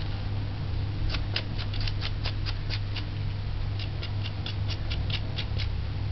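Knife blade scraping the skin off fresh ginger root in quick short strokes, about five a second, in two runs with a short pause between, over a steady low hum.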